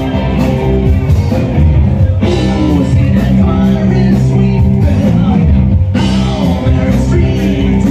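Rock music with a singing voice.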